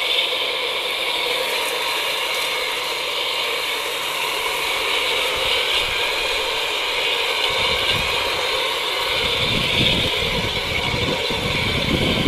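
Two battery-powered radio-controlled model diesel locomotives running coupled, with their diesel engine sound effects switched on: a steady engine drone over the motors and gears. From about halfway, irregular low thumps come in and get stronger towards the end.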